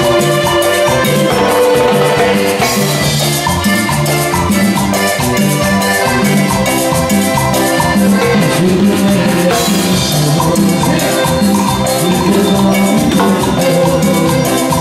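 Live band playing Latin dance music with a steady beat: electronic keyboard, accordion and drums.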